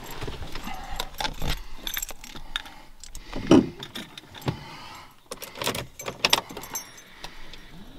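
Metallic handling noises: a run of sharp clicks, light jingling and knocks from tools and small parts being handled during hose work. The loudest knock comes about three and a half seconds in, with another cluster of clicks around six seconds.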